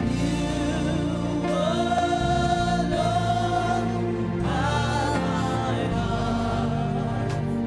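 Live gospel worship music: voices holding long, wavering sung notes over a steady keyboard and bass accompaniment.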